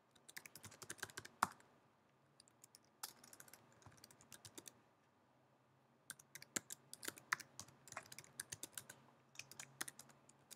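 Typing on a computer keyboard: three runs of quick keystrokes with short pauses between them, the last run the longest.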